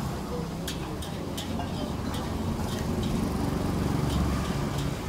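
Steady low rumble of street traffic, with scattered light clicks and clinks of metal utensils against bowls.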